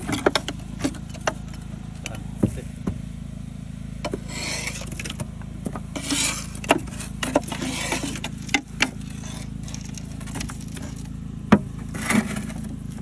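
Wet clay soil being scraped and pried off the flights of a well-drilling auger into a barrow: rasping scrapes and sharp knocks of the tools and falling clods, over the steady low hum of a running generator.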